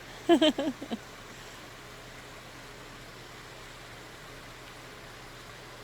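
Steady, even rush of a small mountain creek flowing, with a brief spoken word about half a second in.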